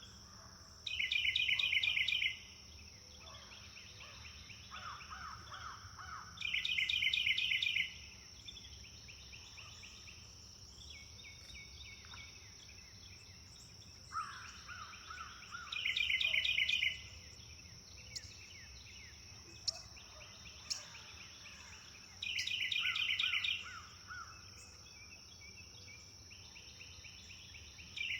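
Wild birds singing: one bird repeats a loud, rapid trilled phrase about every six seconds, while others give softer, lower trills in between, over a steady high-pitched hum.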